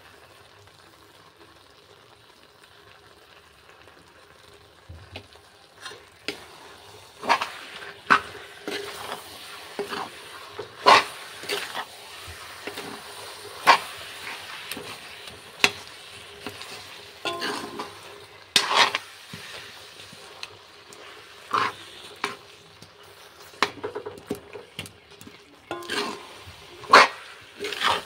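Steel spoon stirring thick, sticky jujube pickle in a wok, clinking and scraping against the pan every second or two over a low sizzle. The stirring strokes start a few seconds in.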